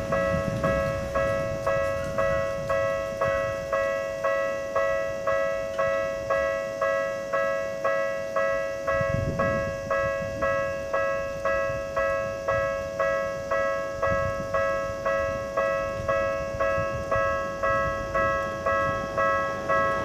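Japanese railway level-crossing alarm: the electronic crossing bell rings a steady two-tone clang, a little over one strike a second, each strike fading before the next. It sounds while the warning lights flash and the barriers are down, signalling that a train is approaching.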